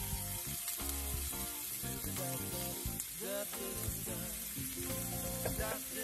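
Diced onion frying in oil in a cast-iron grill pan, with a steady sizzle. Background music with gliding melodic notes plays over it.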